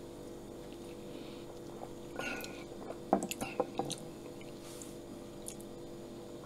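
Soft drinking and swallowing sounds about two seconds in, then a drinking glass set down on a countertop with a few light knocks and clicks, the loudest about three seconds in. A faint steady hum runs underneath.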